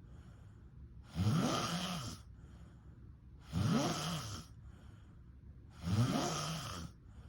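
A person snoring in a steady rhythm: three loud snores about two and a half seconds apart, each rising in pitch and then holding, with quieter breaths between.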